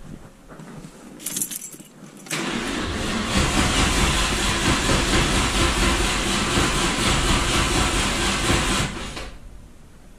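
A few clicks and rattles, then about two seconds in a Corvette's starter motor cranks the engine for about seven seconds without it catching, the cranking too slow for it to fire. The owner suspects the starter is cooked.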